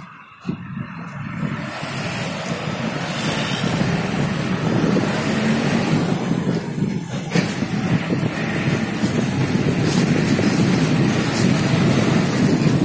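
Steady rushing road and wind noise from a vehicle on the move, building over the first couple of seconds, with wind buffeting the microphone. A single short knock comes about seven seconds in.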